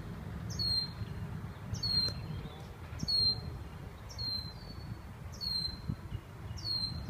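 Red-winged blackbird repeating an alarm call at a hawk: a high whistled note that slides down and levels off, given about once a second, six times. This is the blackbird scolding the predator.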